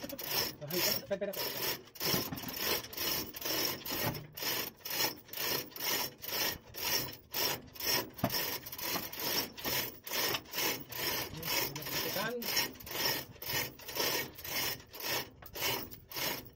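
Rhythmic back-and-forth scraping strokes, about two a second, like a hand tool rasping or rubbing a hard surface.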